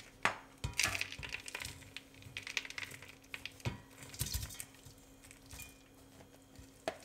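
Ground nuts, almonds, raisins, candied peel and oats being tipped from a bowl into a pot: irregular rattles, rustles and small knocks of the dry mix and the dishes.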